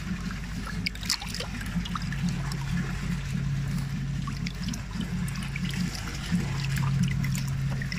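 Water sloshing and trickling in a plastic bucket crowded with young carp, with small splashes as a hand moves among the fish. A steady low hum runs underneath.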